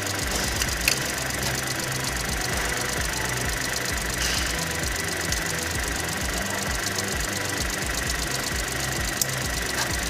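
High-pressure fuel pump of a Volkswagen-group TSI petrol engine ticking fast and steadily over the engine's running while the car is driven, with a couple of sharper clicks.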